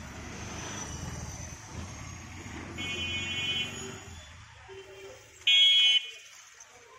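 A vehicle passing on the road, its engine rumbling low, sounds its horn twice: a honk of about a second just before the middle, then a shorter, much louder honk about five and a half seconds in.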